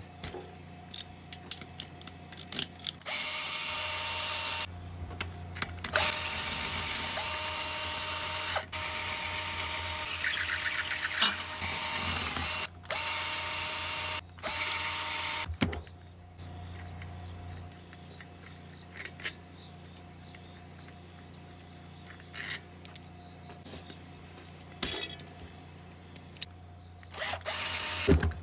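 Power drill running in five short bursts of one to four seconds each, spinning the loosened half-inch head bolts out of a push mower's small engine, followed by light metallic clicks as the parts are handled.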